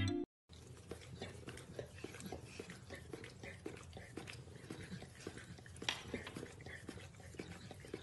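Pit bull licking and mouthing a cat: soft, irregular wet smacking and clicking, with one sharper click about six seconds in.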